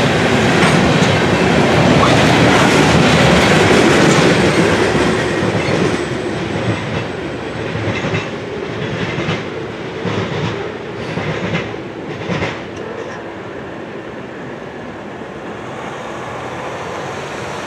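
Covered hopper cars of a freight grain train rolling past, their wheels clattering over the rails. About six seconds in the clatter thins to a few separate clacks as the end of the train goes by and recedes, then fades to a low rumble.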